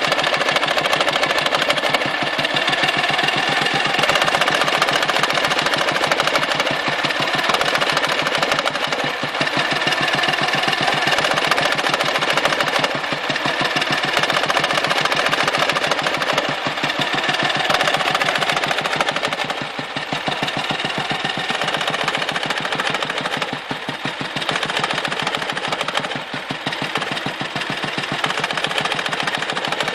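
Dnepr motorcycle's flat-twin engine running with a knock. The owner says the knock comes and goes, and that while it is there the engine loses power and spits fuel back out of the carburettor.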